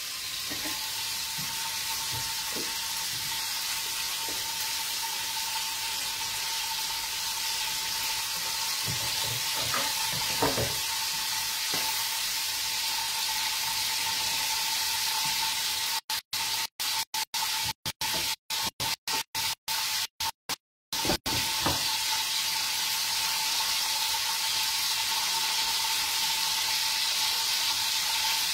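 Prawns and olive oil frying in pans on a gas hob, a steady sizzle with a faint steady whine under it and a few light knocks of utensils. About two-thirds through, the sound cuts out in a string of short gaps for several seconds.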